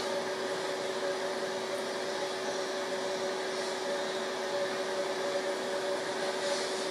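A steady mechanical hum: even noise with two constant low tones, unchanging throughout.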